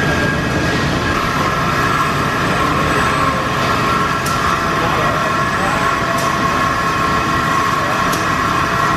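Machinery of a robotic cell that heats steel tube ends red-hot and forms them, running steadily: a dense machine noise with a whine of several high steady tones that strengthens about a second in, and three faint clicks about two seconds apart.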